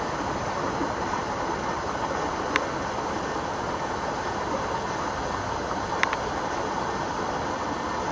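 Steady rushing, hiss-like outdoor background noise with no clear pitch, broken by a short sharp click about a third of the way in and two quick clicks close together about three-quarters of the way through.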